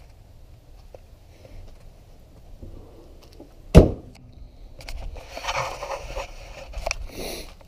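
Pickup truck hood shut with one loud bang about four seconds in, followed by scuffing footsteps and rustling.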